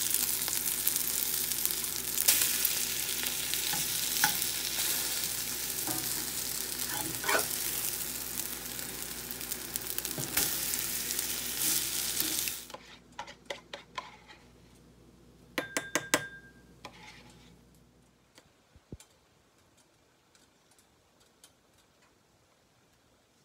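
Cauliflower pancakes sizzling in oil in a cast iron skillet, with occasional scrapes and clicks from a metal spatula. About halfway through, the sizzle cuts off suddenly and a few light clicks and taps follow, a couple of them ringing briefly, before near quiet.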